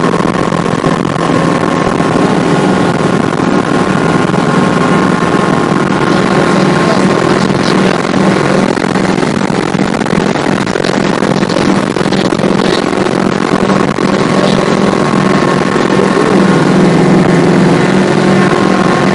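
Helicopter engine and rotor noise heard inside the cabin in flight: a loud, steady drone with a constant low hum and a higher steady whine.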